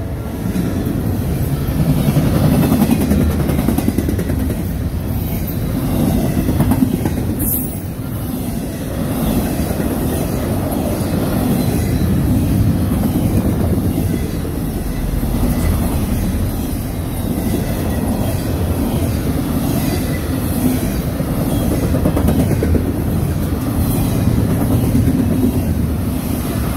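Double-stack intermodal freight train passing close by at speed: a steady noise of container well cars' steel wheels running over the rails.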